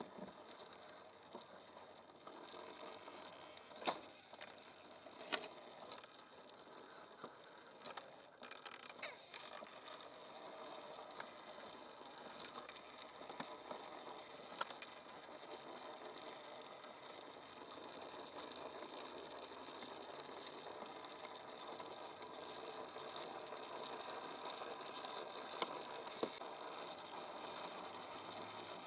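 Faint whirr of a small electric motor and gearbox, as of an RC scale crawler driving over rough ground, with scattered clicks and rattles; it grows slightly louder toward the end.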